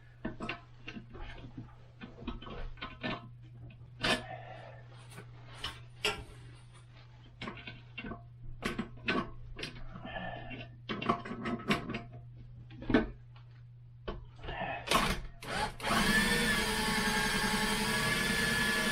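Clicks and knocks of a flat-tip bit working at a toilet-seat bolt, then a power driver running steadily for about three seconds near the end, turning a stripped seat screw held by a plastic nut.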